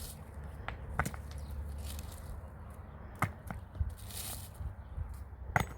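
Several sharp, irregularly spaced knocks, like hard strikes on wood; the loudest come about a second in and near the end.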